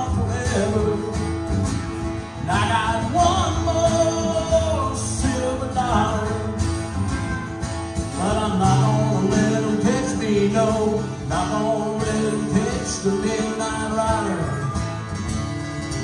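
Acoustic country band playing: several acoustic guitars strumming chords while a harmonica plays a bending, wavering lead line in phrases.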